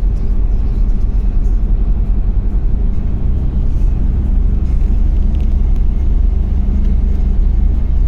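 Steady low rumble of a vehicle travelling.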